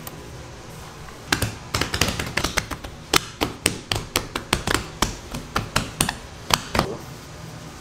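Gloved hand patting and slapping a rolled-out sheet of donut dough flat on a wooden workbench: a quick, uneven run of sharp pats, about three or four a second, that starts about a second in and stops shortly before the end.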